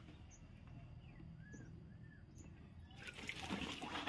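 Water sloshing and dripping in a plastic crate as hands grab a large fish and lift it out. It is faint at first and gets louder and busier from about three seconds in.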